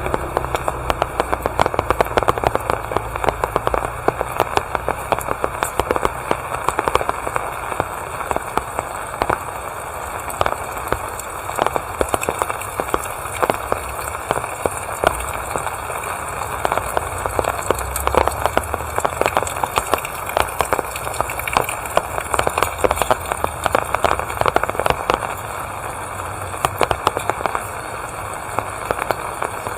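Steady rain falling, with a dense, continuous patter of close raindrops ticking sharply on nearby surfaces. A low rumble fades out at the start and comes up again briefly around the middle.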